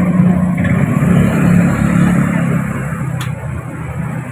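A motor vehicle's engine running steadily over street traffic noise, with a short click about three seconds in.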